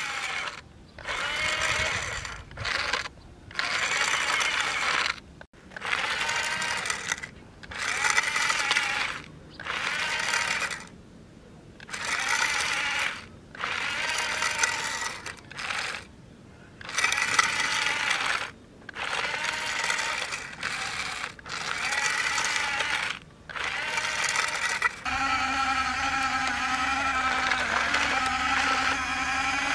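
Remote-control toy wheel loader's electric drive motors and gears whining in repeated short bursts, stopping and starting as it is driven and working its bucket. Near the end this gives way to a steady engine-like hum from the Huina remote-control toy excavator.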